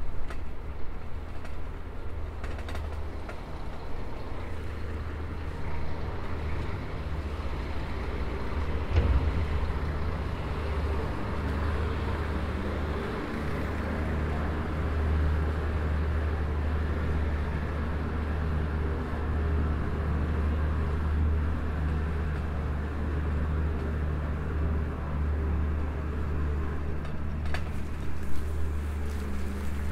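Motor traffic on a city street: a steady low engine hum with the hiss of tyres on the road, and a sharp knock about nine seconds in.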